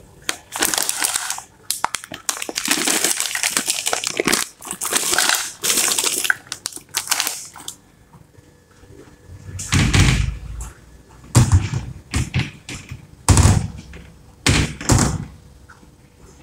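Plastic bag of frozen mixed vegetables crinkling and rustling as it is handled and opened. In the second half come several heavier thumps and rattles as the frozen vegetables are shaken out onto a plate.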